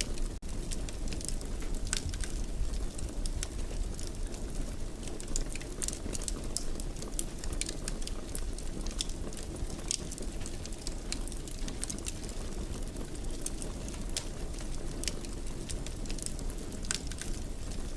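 Fire burning in a fireplace: a steady low rumble of flames with many small, sharp crackles and pops scattered throughout.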